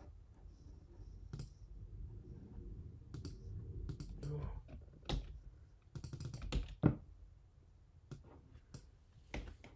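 Typing on a computer keyboard: irregular key clicks with short pauses between runs, a few of them sharper and louder.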